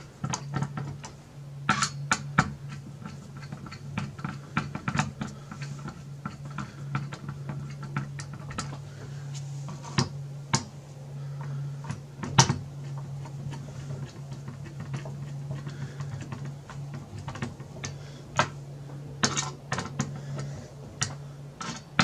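A screwdriver turning the mounting screws of a CPU heatsink-fan housing down to hand tight, with irregular light clicks and scrapes of the metal tip in the screw heads and a few sharper clicks. A steady low hum runs underneath.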